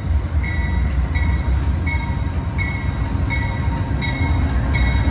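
Amtrak GE P42DC diesel locomotive pulling slowly into a station up close, its engine and running gear making a heavy low rumble. Over it a bell rings at a steady pace, about once every 0.7 seconds, as is done when a train enters a station.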